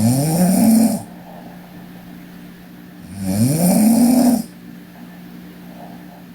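A sleeping woman snoring: one snore ending about a second in and another starting about three seconds in, each rising in pitch and then levelling off. A steady low hum runs between them.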